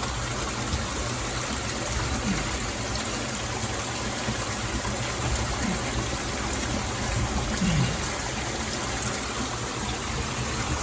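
Water running steadily through a flooded, narrow cave passage, an even rushing noise.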